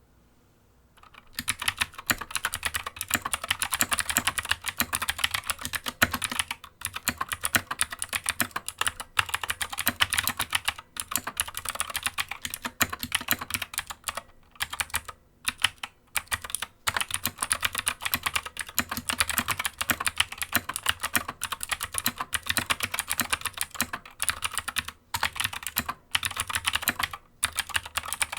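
Stock Anne Pro 2 60% mechanical keyboard with clicky Gateron Blue switches being typed on: a dense, continuous run of key clicks starting about a second in, broken by a few short pauses.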